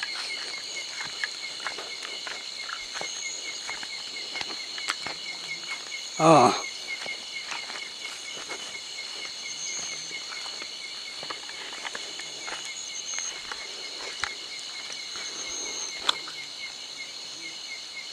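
Night insect chorus: crickets and other insects chirring steadily at several high pitches, with scattered light clicks and rustles. One short, louder sound falling in pitch comes about six seconds in.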